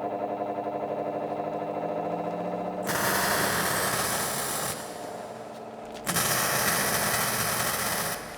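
A pulsing, droning musical tone, then about three seconds in, a loud harsh rasping noise from a workshop power tool. It breaks off briefly and starts again about six seconds in.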